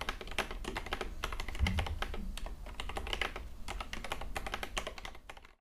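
Fast typing on a mechanical keyboard: a dense, continuous run of key clicks that stops abruptly near the end.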